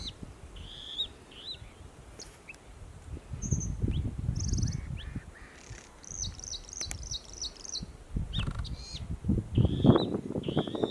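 Male bluethroat singing short, varied phrases of high notes, with a fast run of repeated notes in the middle. Gusts of wind rumble on the microphone, loudest near the end.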